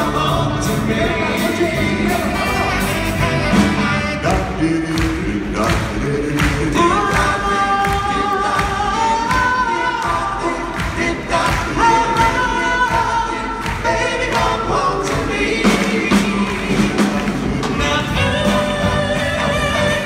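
Live doo-wop vocal group singing close harmonies, with long held notes, over a band with drums keeping a steady beat.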